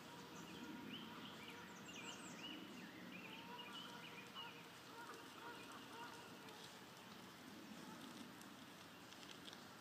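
Faint birdsong: short chirping phrases repeating mostly through the first four seconds, over a soft outdoor hush.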